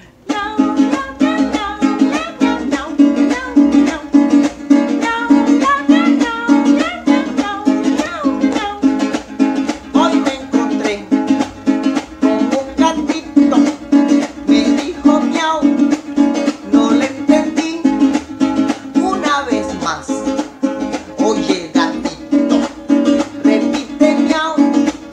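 Small acoustic guitar strummed fast and steadily in an even rhythm.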